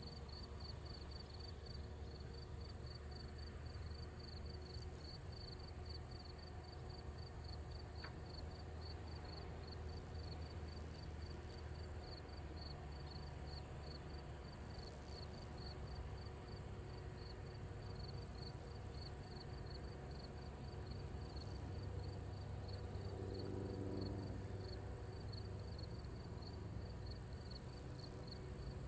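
Insects chirping in a fast, even pulse over the low, steady drone of a distant light plane's engine: a Cessna 150F's Continental four-cylinder on final approach. The drone grows a little louder later on as the airplane closes in.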